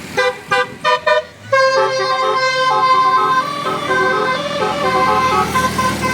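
Bus 'telolet' multi-tone horn (Basuri-type) sounding: about four short toots, then from about a second and a half in, an unbroken melody of stepping notes.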